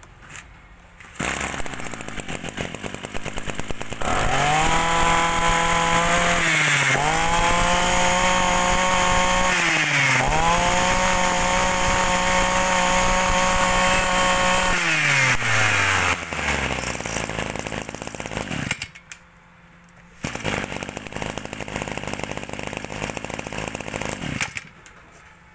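Ryobi EKK-2620 brush cutter's small two-stroke engine starts about a second in, idles, then is revved to high speed three times with the throttle, each time dipping briefly before rising again. It falls back to idle, cuts out for about a second, runs at idle again and stops near the end.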